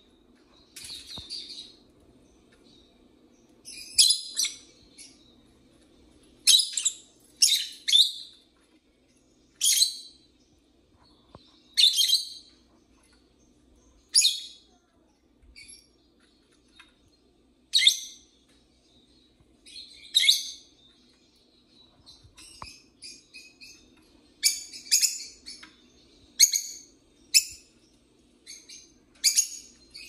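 Peach-faced lovebirds giving sharp, high-pitched chirps, one about every two seconds, coming faster in a quick run of calls near the end.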